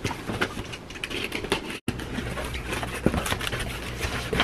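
Box cutter slicing the packing tape on a cardboard parcel, then the cardboard flaps being pulled open: scratchy scraping with a run of small clicks and rustles.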